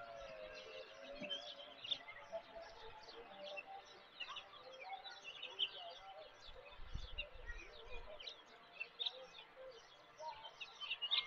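Many small birds chirping and twittering in quick, overlapping calls, with a brief faint low rumble about seven seconds in.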